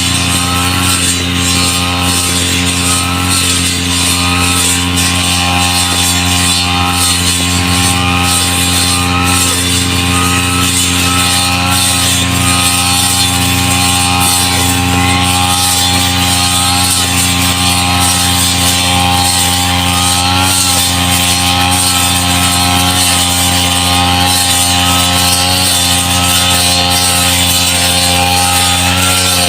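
Grass-cutting machine (brush cutter) engine running steadily at a constant speed, with one high tone wavering up and down about once a second.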